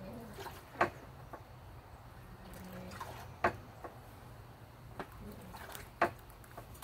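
Sharp clicks and slaps from a person's movements while performing taekwondo poomsae Taegeuk 5. Three loud ones come about two and a half seconds apart, with fainter ones between.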